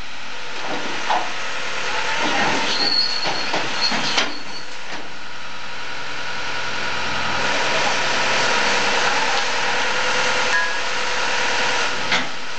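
Heavy earthmoving machine running steadily, with a few sharp metallic knocks and clanks over the engine noise.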